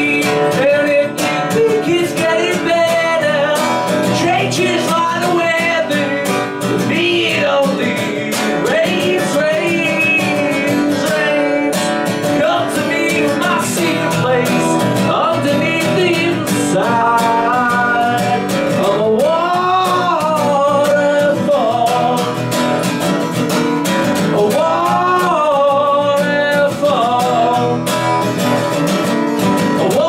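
Strummed acoustic guitar with a man singing over it, a live solo performance of a song.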